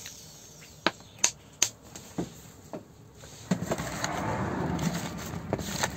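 A few sharp plastic clicks and taps, then from about three and a half seconds in a steady rustling and squelching as oiled button mushrooms are tossed by hand in a plastic tray to coat them in oil.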